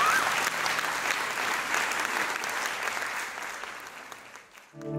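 Theatre audience applauding, with a short rising whistle at the start; the applause fades out near the end.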